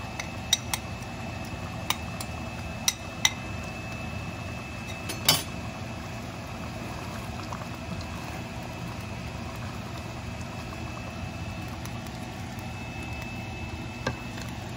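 Chicken in poppy-seed gravy simmering in a non-stick pot, bubbling steadily as the sauce reduces, with scattered sharp pops and clicks in the first few seconds, the loudest about five seconds in.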